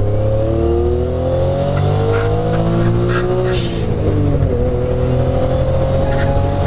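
Modified big-turbo Suzuki Cappuccino engine pulling hard, its revs climbing. About three and a half seconds in there is a short hiss and the revs drop, as on an upshift, then climb again.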